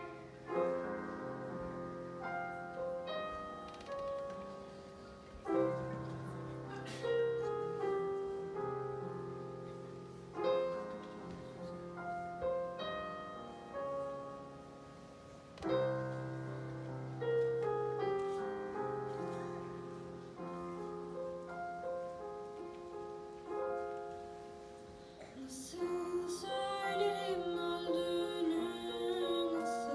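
Piano playing a slow instrumental passage, chords struck every few seconds and left to ring out. Near the end a wavering sustained melody joins in over the piano.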